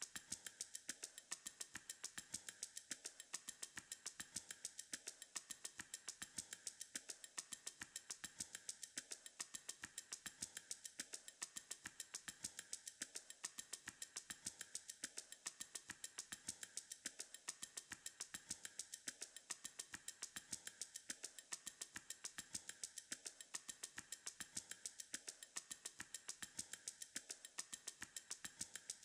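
Faint background music made of a steady ticking beat, about four or five ticks a second, with a loop that repeats every two seconds.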